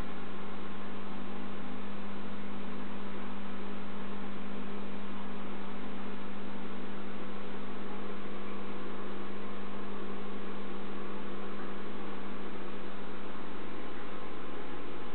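Steady mains hum with a constant hiss from a running reef aquarium's equipment. It does not change throughout.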